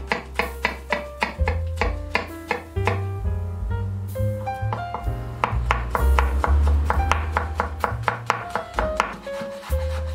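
Chef's knife chopping garlic cloves on a wooden cutting board, fast repeated strikes about four a second, over background music with a bass line.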